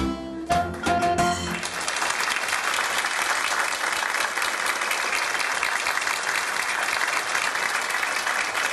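A small band plays the last notes of a song, ending about a second and a half in. An audience then applauds steadily.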